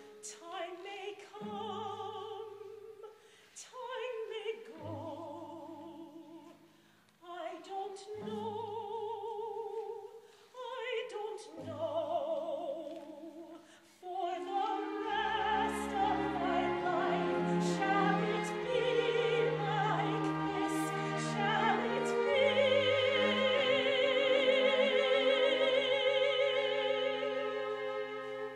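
Opera singing with orchestra: a voice sings short phrases with vibrato, broken by brief pauses, then about halfway the orchestra fills in fully and the music builds to a long held note.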